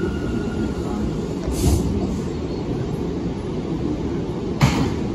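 Bombardier R179 subway car running on the rails: a steady low rumble of wheels on track. A steady high whine fades out about a second in, and two short sharp clunks come about three seconds apart.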